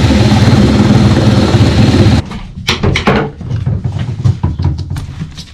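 Loud background music that cuts off abruptly about two seconds in, followed by scattered knocks and clatter over a low rumble.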